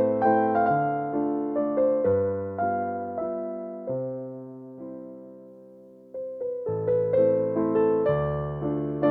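Background music: a soft electric piano playing chords that fade out near the middle and start again about two-thirds of the way through.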